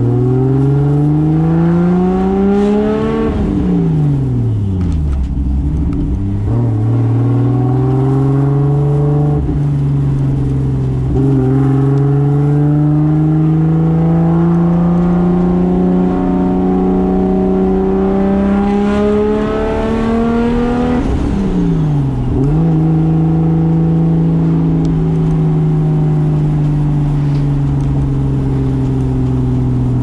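Turbocharged 2JZ straight-six of a 1995 Toyota Soarer driving under load: revs climb hard for the first three seconds, then fall away sharply. The engine pulls in long, slow climbs in gear, drops sharply again about twenty-one seconds in, then holds steady until the revs fall near the end.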